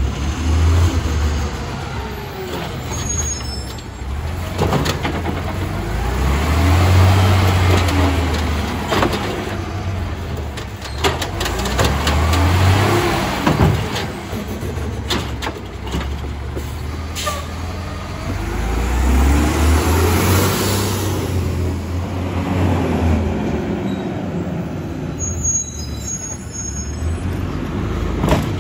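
Automated side-loader garbage truck at work: its diesel engine revs up in repeated surges to drive the hydraulic lift arm, with a rising and falling whine, clanks as the carts are grabbed and dumped, and air brake hisses.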